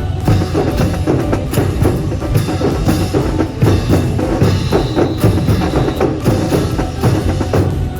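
Marching band drums playing a busy rhythm of sharp strikes with a heavy bass drum, accompanying a drill display.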